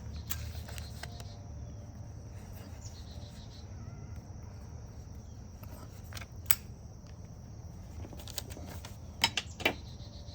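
Outdoor background of steady insect chirring over a low rumble, with a few sharp clicks: one near the start, one around the middle, and a quick cluster near the end.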